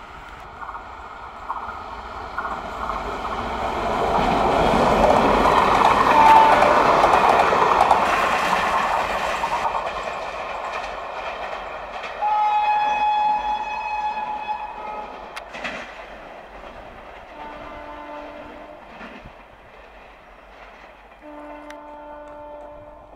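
An electric locomotive and its short rake of coaches pass at high speed: the rumble and clatter of wheels on rail swell to a peak about six seconds in, then fade as the train draws away. The locomotive's horn sounds as it recedes, with a long blast about halfway through and shorter, fainter blasts later, one of them near the end.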